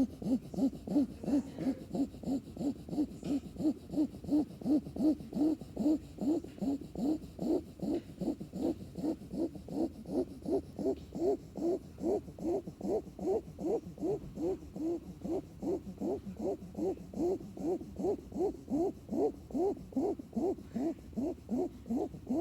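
A sleeping puppy snoring in quick, regular breaths, about two to three a second. Each snore is a short pitched tone that rises at its end.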